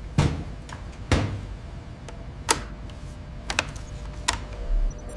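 Five or so sharp knocks and clanks spread a second or so apart, some with a short ring, over a steady low rumble and a faint hum.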